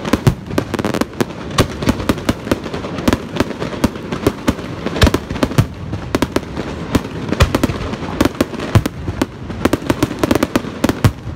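Fireworks display: aerial shells launching and bursting in a dense, unbroken barrage, several sharp bangs a second.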